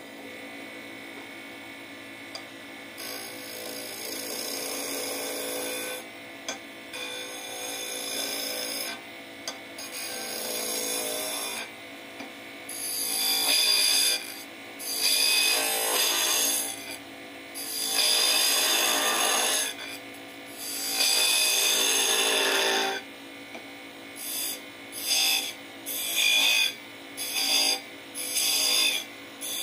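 A wood lathe runs with a steady hum while a hand-held turning chisel cuts into the spinning wooden blank, making a scraping hiss. The cutting comes in spells of a few seconds and gets louder partway through. Near the end it breaks into short, repeated strokes as the chisel is fed in and out to cut a groove.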